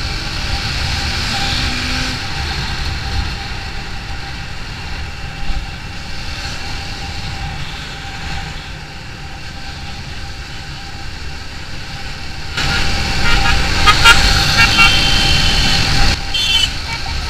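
TVS Apache RTR 200 4V motorcycle on the move at speed: steady wind rush on the helmet camera with the engine running underneath. About three-quarters of the way in, a vehicle horn honks in a string of short toots for several seconds.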